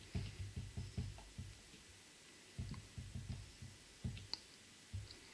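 Felt-tip marker writing a small label by hand: a run of soft, dull taps and clicks of the tip against the drawing surface, in two clusters with a pause of about a second between them.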